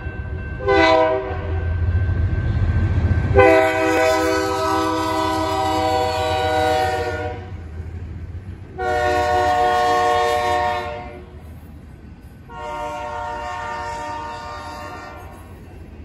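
BNSF 5110, a GE Dash 9-44CW diesel-electric locomotive, sounding its multi-chime air horn for a grade crossing: a short blast about a second in, then three long blasts, over the low rumble of the diesel engine. The rumble is strongest just before the first long blast.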